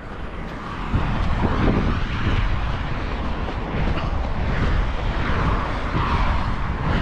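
Steady rushing rumble of wind buffeting the camera microphone as the runner moves, mixed with passing road traffic. It grows louder about a second in.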